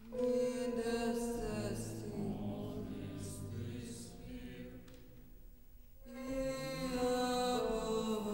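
Contemporary classical vocal music: choir voices with chamber ensemble holding long, sustained notes with slight pitch slides. The sound enters suddenly at the start, dies away to a quiet stretch around the middle, and swells in again about six seconds in.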